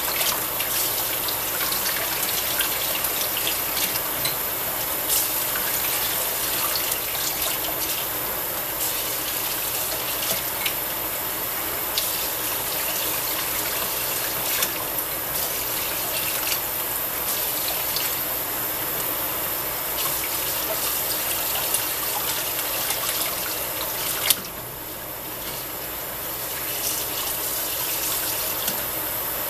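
Kitchen faucet running into a stainless steel sink while raw beef tips are rinsed by hand under the stream, with splashing and small knocks. About 24 seconds in there is a single sharp knock, after which the water sounds quieter for a couple of seconds.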